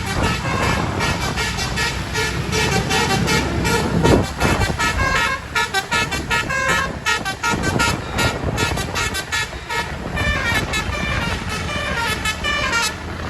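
A bus's Basuri multi-tone 'telolet' air horn plays a fast repeating tune of stepping notes over a diesel engine rumble. A louder burst of noise comes about four seconds in.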